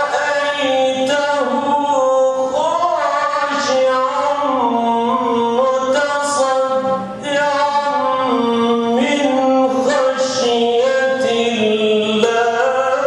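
A man reciting the Quran in Arabic in the melodic, chanted style, holding long ornamented notes. He pauses briefly for breath about seven seconds in.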